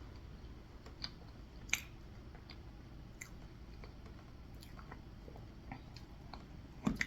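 A person chewing a mouthful of frosted red velvet cake, faint, with scattered small wet mouth clicks.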